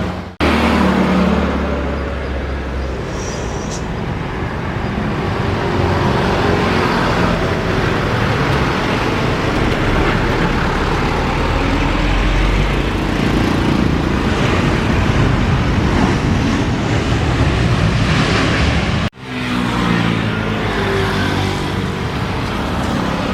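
Steady loud roar of engines, broken by two abrupt cuts, one just after the start and one near the end.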